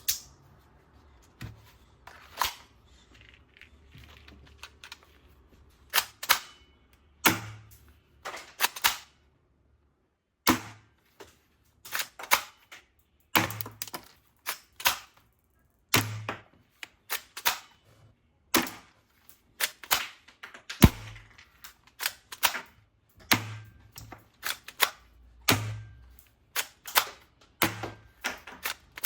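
Sharp plastic clicks and snaps at irregular intervals, some in quick pairs, from toy guns and their parts being handled and worked.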